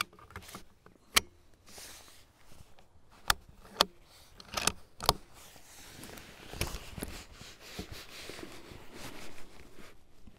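Sharp metallic clicks and clacks of an L96A1 bolt-action sniper rifle being handled and loaded: the magazine is pushed home and the action is worked, with a quick run of clicks about halfway. Softer rustling follows as the shooter settles in behind the rifle.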